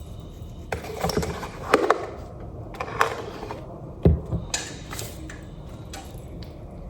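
Scattered knocks, clicks and clatter of kitchen items being handled during cooking, with one heavier thump about four seconds in.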